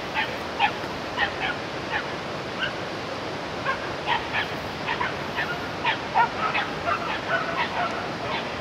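Hunting dogs barking and yelping in quick, irregular, overlapping short barks, several a second, over a steady background hiss.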